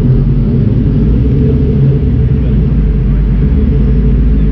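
Straight-piped Ford GT's supercharged V8 running at a steady, low engine speed, a loud deep exhaust rumble with no revving, heard from the car's open window in an underground parking garage.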